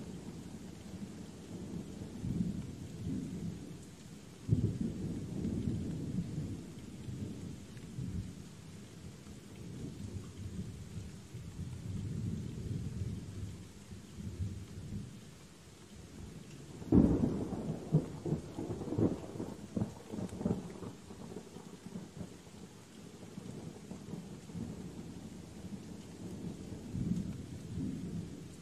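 Thunder rolling over steady rain, with a sudden louder clap a few seconds in and the loudest clap just past halfway, each dying away in a long rumble.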